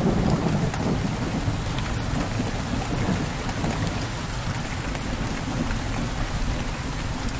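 Steady heavy rain pouring, with a low rumble underneath. It eases slightly near the end.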